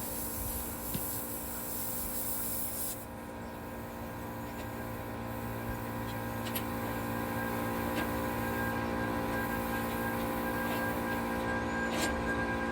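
Steady machine hum made of several fixed tones, with a high hiss that stops about three seconds in.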